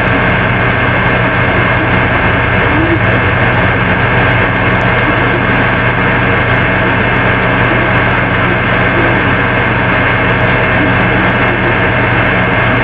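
A loud, steady hum and hiss with several steady tones, unchanging throughout.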